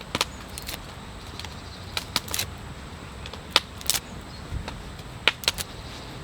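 Irregular sharp clicks and snaps, about a dozen spread unevenly over six seconds, over a steady faint hiss.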